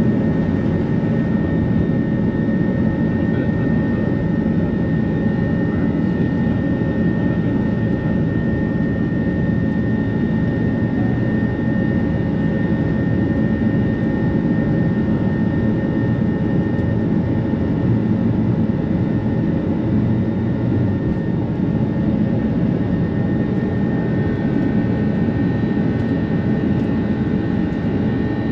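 Airbus A330 jet engines at takeoff power, heard from inside the cabin through the takeoff roll and climb-out: a loud, steady rumble with a thin steady high tone above it.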